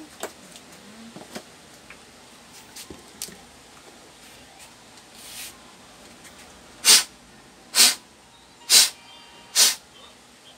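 Air blower used to clean out the laptop's internals: a few faint clicks, then four short, loud puffs of air about a second apart in the second half.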